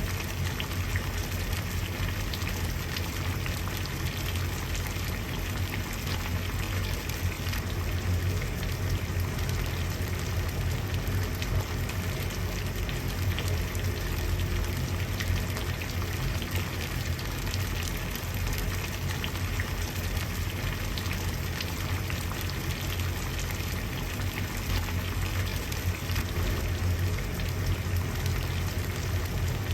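Water at a rolling boil, a steady dense bubbling and crackling over a low rumble.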